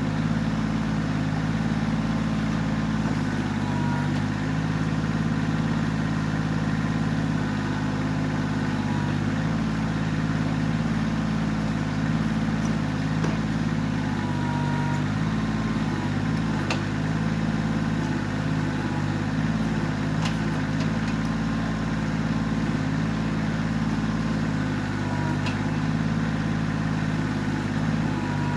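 Kioti CK20S compact tractor's diesel engine running steadily under backhoe work, its pitch dipping slightly now and then as load comes on, with a faint wavering whine above it and a few light clicks.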